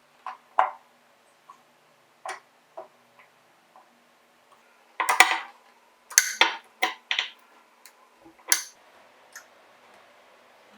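Scattered clicks and light knocks of hard objects being handled, with a burst of louder clattering about five seconds in and a few more sharp knocks over the following three seconds.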